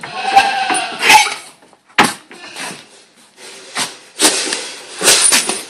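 A Boer goat's hooves knocking and scraping on the lid of a painted wooden feed box as he stands and shifts about on it, with a sharp knock about two seconds in.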